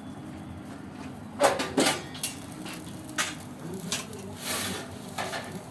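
A few sharp metallic knocks and a short scrape from a metal pizza peel working the pizza on the hot baking steel in the oven, over a steady low hum.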